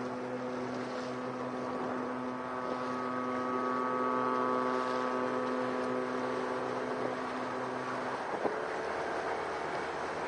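A vessel's steady low drone, one unwavering pitch that holds for about eight seconds and then stops, over wind and water noise. A click follows, then a fainter tone that rises slightly.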